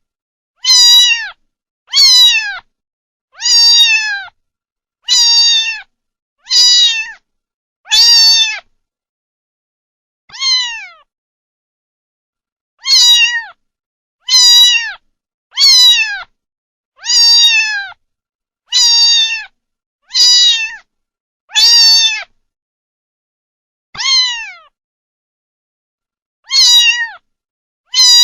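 Kitten meowing over and over, short high-pitched meows about every second and a half. Each meow falls in pitch at its end, with silence between them and a few longer pauses.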